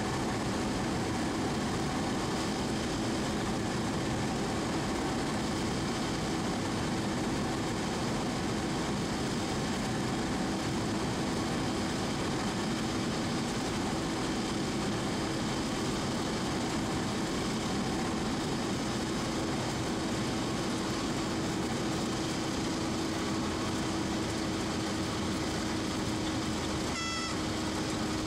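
Cessna 172's engine and propeller running steadily, heard inside the cockpit. About a second before the end, a high reedy tone starts sounding: the stall warning horn as the plane flares to land.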